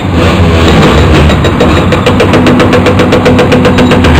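Diesel engines of heavy Caterpillar excavators working under load during concrete demolition. From about a second in, a rapid, even clatter of about ten beats a second runs over the engine drone.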